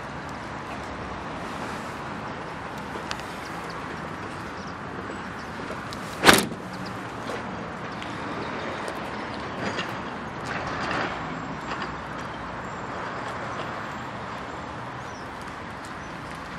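Renault Trafic van's rear tailgate slammed shut: a single loud bang about six seconds in. Steady outdoor background noise runs under it, with a few faint handling noises a few seconds later.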